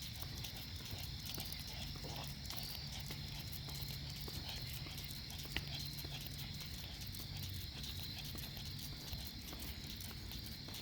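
Footsteps on a walk, repeated at an even pace, over a faint steady high-pitched drone.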